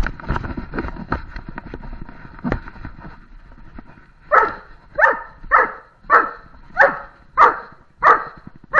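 A search-and-rescue dog, with the camera mounted on its own head, moves over rubble with scuffing and knocking. Then, about four seconds in, it gives eight loud, evenly spaced barks, about one and a half a second: a bark alert at a found hiding spot.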